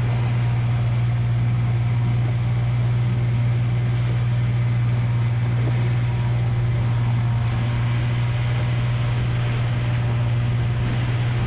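Small outboard motor running at a steady speed, a constant low hum that does not rise or fall, over the rush of wind and water as the boat moves.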